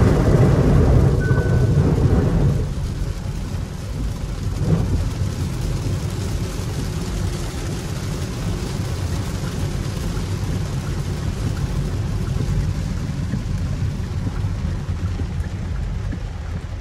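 Cabin noise inside a Hyundai Ioniq 5 electric car driving on a wet road in heavy rain: a steady rumble and hiss of tyres and rain, with no engine. It is louder for the first two and a half seconds, then settles.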